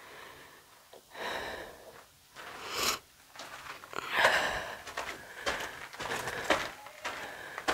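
A person breathing hard in short, noisy breaths about a second apart, with a few scuffing steps on loose dirt and rock.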